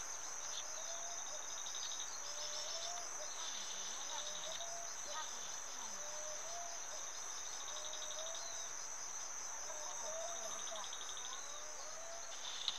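Outdoor insect chorus: a steady high-pitched drone with pulsing trills that come and go, over short chirping calls about once a second.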